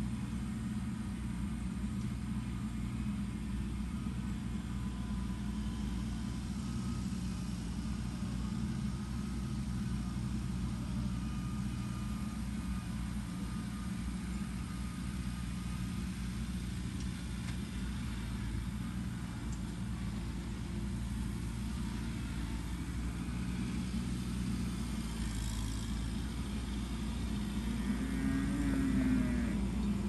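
Kubota tractor's diesel engine running steadily. Near the end its note rises and falls once as it is briefly throttled up.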